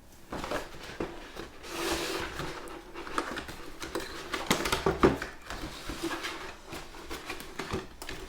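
Cardboard box being handled and opened: uneven rustling and scraping with scattered sharp clicks, the loudest about five seconds in.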